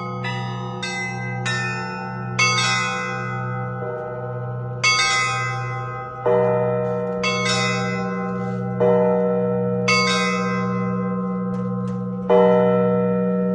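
Russian Orthodox church bells rung in a zvon pattern: smaller bells struck in quick succession, about two strikes a second at first, then heavier strikes every one to two and a half seconds. Each strike rings on over the steady, pulsing hum of a large bell.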